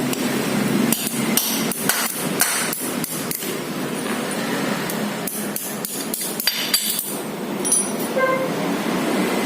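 A hammer tapping about a dozen times, some strikes in quick pairs, to drive the water pump shaft into a Honda Vario's pump housing, over a steady hiss. A short metallic ring follows near the end.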